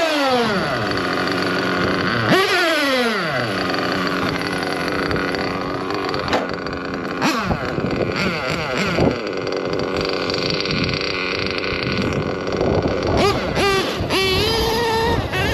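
Two-stroke Samurai RM .21 nitro engine in a Losi 8ight-T truggy revving in sharp throttle blips, the pitch falling back after each, as it is warmed up; toward the end it runs on and accelerates with rising whines as the truck drives off.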